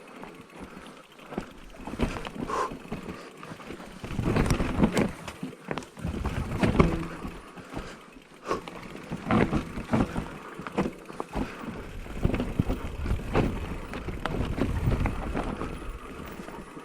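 Specialized Turbo Levo electric mountain bike descending a rough trail: tyres rumbling over dirt, with irregular knocks and rattles from the frame, chain and suspension as it hits rocks and roots, in surges that come and go.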